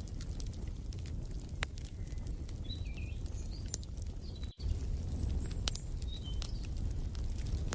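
Fireplace fire crackling, with a steady low rumble and frequent sharp pops and snaps, while small birds chirp a few short calls in the middle. The sound drops out for a split second about halfway through.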